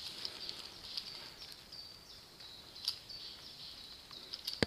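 Quiet woodland ambience with steady high-pitched bird chirping. A few sharp clicks and snaps come from movement through dry spruce branches and leaf litter, the sharpest about three seconds in.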